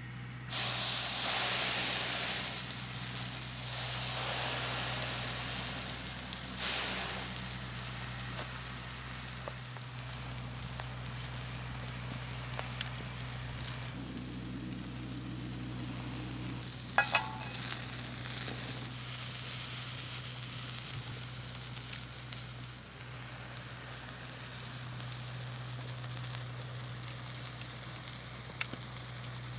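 Food frying in a pan over a wood campfire: a steady sizzle, with louder surges about half a second in and again near seven seconds, and a couple of sharp clinks near seventeen seconds.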